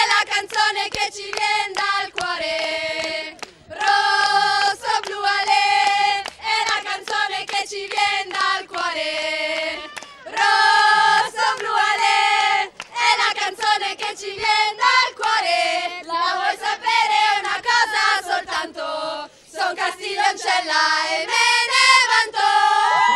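A group of young women singing a team chant together in long held notes, with some hand clapping.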